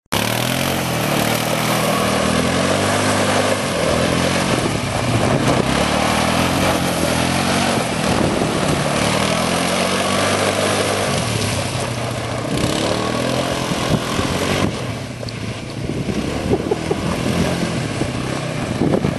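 Quad bike (ATV) engine running and revving up and down again and again as it is ridden in tight turns on loose gravel, with gravel crackling and spraying under the tyres. It drops quieter for a moment around the fifteen-second mark.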